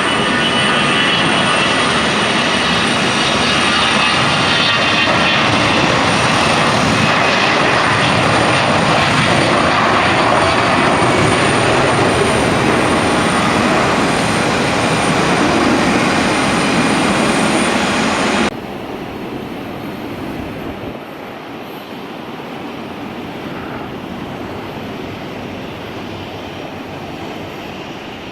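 Airliner engines running loud, with a steady high whine over the engine noise. About two thirds of the way through it cuts off abruptly to quieter, steady aircraft engine noise.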